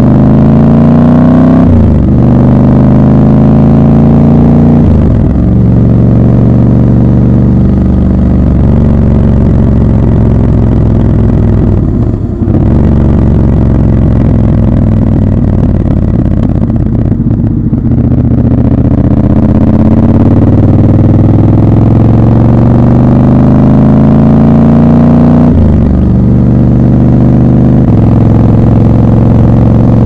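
Triumph Scrambler 1200 XC's 1200 cc parallel-twin engine and exhaust on the move, loud, its pitch climbing as it accelerates and dropping back at each upshift, several times over, with a brief lift off the throttle about twelve seconds in.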